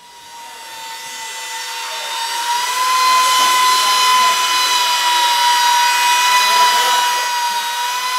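A small high-speed motor, such as a power tool's, whining steadily at a high pitch with a hiss, fading in over the first few seconds and then holding.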